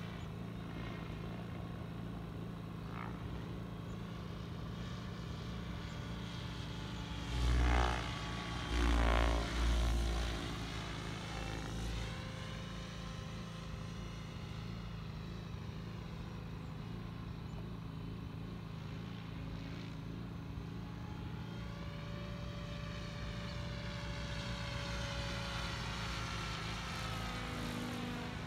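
Radio-controlled helicopter flying overhead: a steady rotor and motor drone with whining tones that glide up and down as it manoeuvres. A few loud low rumbles come about a quarter of the way in.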